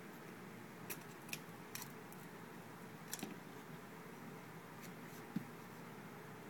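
Light clicks and taps of small repair tools on the internal parts of an iPhone being taken apart, about seven scattered over a faint steady hiss, the sharpest a knock about five seconds in.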